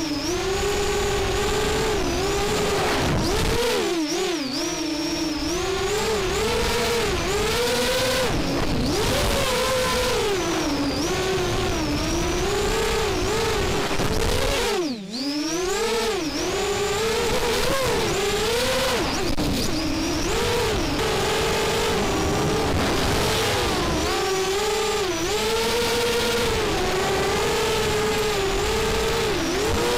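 FPV racing quadcopter's brushless motors and propellers whining, heard from its onboard camera, the pitch rising and falling constantly with the throttle through turns. About halfway through the pitch drops sharply as the throttle is cut, then climbs right back.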